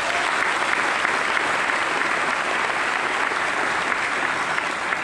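Large audience applauding steadily, many people clapping at once.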